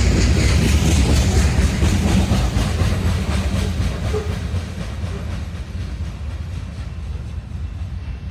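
Loaded unit coal train rolling past, its wheels clicking over the rail joints in a steady rhythm over a low rumble. The sound fades away over the last few seconds.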